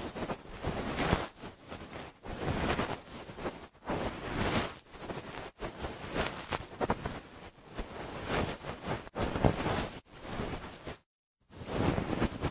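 Soft fur brushed back and forth over a binaural microphone's ear, standing in for a fluffy dog tail in ASMR ear cleaning: rustling, noisy strokes about once a second, with a brief stop about eleven seconds in.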